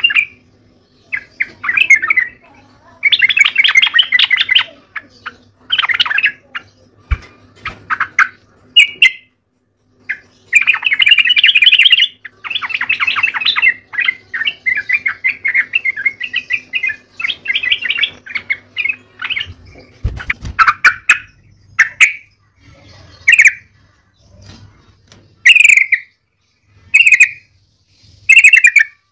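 Yellow-vented bulbul singing vigorously: repeated bursts of fast chattering notes, some lasting a second or two and others short, with brief pauses between them.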